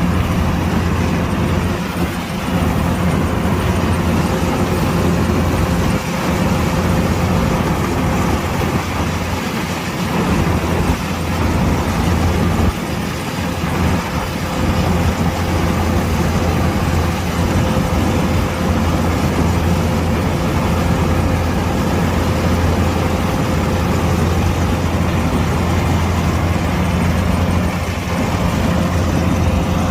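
Kubota DC-105X combine harvester's diesel engine running steadily, a continuous low drone with a faint constant whine above it.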